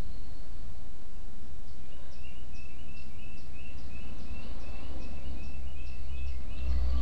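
Steady low hum with a repeated high chirping over it from about two seconds in, about three short chirps a second, like a small bird calling.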